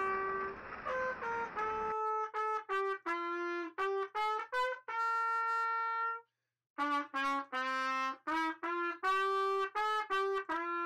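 Background music: a single brass-sounding melody line of short, separate notes, with a short break about six seconds in.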